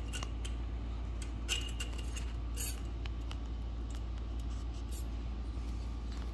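A few light metallic clicks and clinks, about a second and a half in, near the middle and around five seconds in, over a steady low hum: a head gasket being fitted onto the cylinder of a small quad engine during a top-end rebuild.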